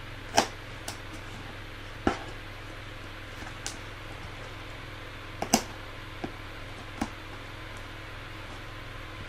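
Handling and cutting at a heavily taped cardboard box: a handful of sharp, irregular clicks and knocks over a steady low hum.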